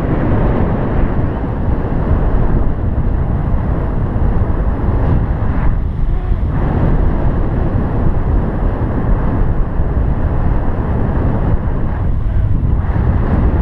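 Wind noise from the airflow over a paraglider harness-mounted camera's microphone in flight: a loud, steady rushing rumble, easing briefly about six seconds in.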